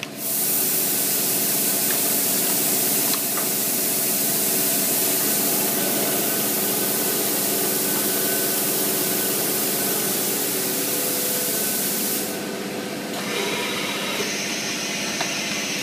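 Plastic blister vacuum-forming machine running with a steady hum, and a loud hiss of air that starts suddenly, runs about twelve seconds and cuts off.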